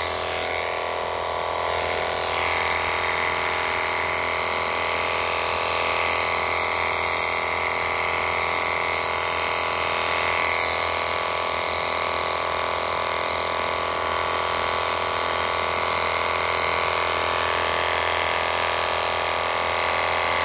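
Cordless battery-powered pressure washer running steadily, its electric motor and pump giving an even whine while the jet sprays water.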